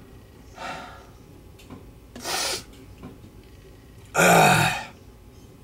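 A man reacting to a strong pinch of menthol nasal snuff: two short breathy sniffs through the nose, then, about four seconds in, a loud rough throaty exhale.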